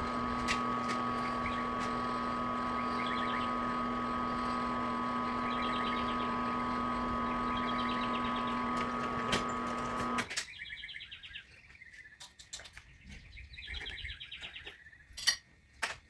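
A machine runs with a steady hum and then shuts off abruptly about ten seconds in. Birds chirp throughout and are heard more clearly once it stops, with a few sharp clicks near the end.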